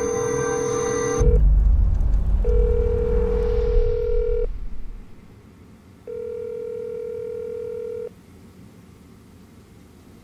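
Telephone ringback tone, the steady ring a caller hears while the other phone rings, sounding three times for about two seconds each. A loud, deep low rumble lies under the first half.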